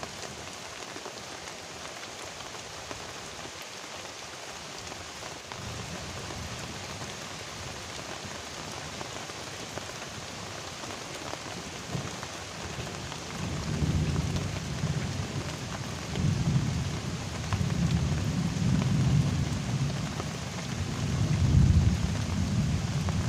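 Heavy rain pouring steadily on a river and its bank. About halfway through, thunder starts rumbling low, rolling in swells and growing louder towards the end.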